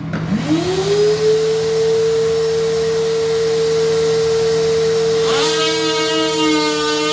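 Battery-powered DeWalt oscillating multi-tool starting up, its pitch rising over the first second to a steady high whine. About five seconds in the tone changes and grows fuller as the blade bites into the material being cut.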